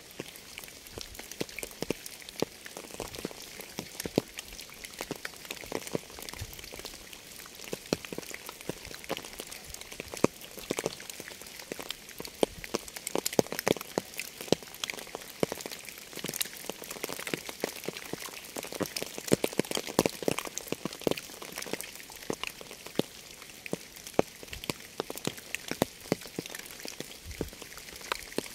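Rain falling steadily: a constant hiss with many distinct, sharp drop impacts close by.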